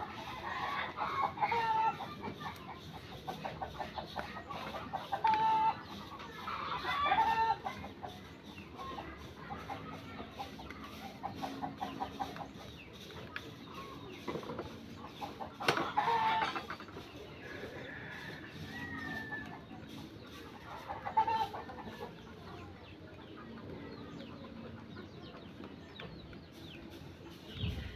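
Chickens clucking in short calls scattered through, with a rooster crowing now and then.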